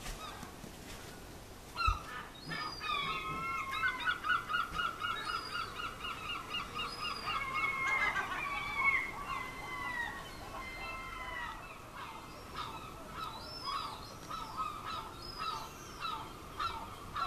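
Several herring gulls calling, with a fast run of repeated yelping notes from about four seconds in and shorter separate calls after. A single bump sounds about two seconds in.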